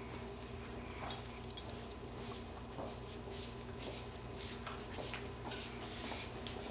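Quiet indoor room tone with a steady low hum and faint scattered clicks and taps, two sharper ones about a second in.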